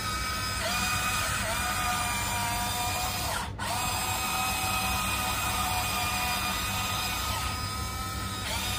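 Huina 1594 RC excavator's electric motors whining through their gears as it pivots on its tracks and drives forward. The pitch rises as each motor spins up. The whine cuts out briefly about three and a half seconds in, then starts again.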